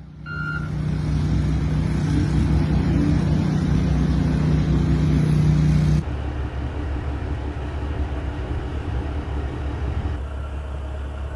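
Vehicle engines running steadily with a low hum and rumble. The sound cuts abruptly to a different, lower rumble about six seconds in and shifts again near the end.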